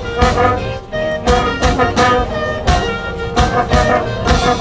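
Marching band playing full out: brass and woodwinds holding loud chords, punctuated by drum hits.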